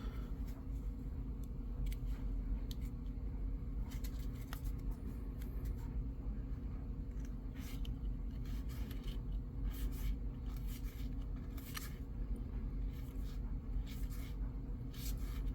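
Stiff trading cards being flipped and slid against one another: a run of short, irregular papery scrapes and snaps. Under them a clothes dryer runs with a steady low hum.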